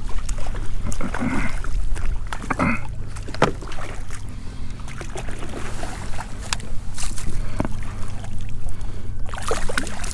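Water lapping and splashing against a fishing kayak's hull, with scattered short knocks and clicks over a steady low rumble.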